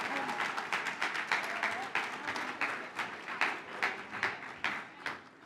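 Audience applauding, the clapping thinning out into scattered separate claps and fading away toward the end.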